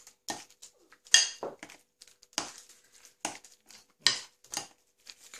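Metal fork stirring a thick cheese mixture in a glass bowl, clinking against the glass in about seven irregular strikes, the loudest a little over a second in.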